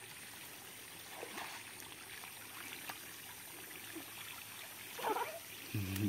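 Shallow stream water trickling over smooth rock slabs, faint and steady, with a short voice cry about five seconds in and another just at the end.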